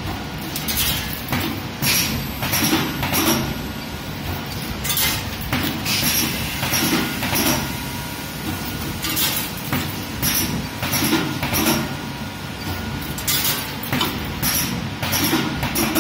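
Electro-pneumatic hair-pin riveting machine running its automatic cycle: repeated sharp clamping and punching strokes, roughly one or two a second, over a steady machine hum.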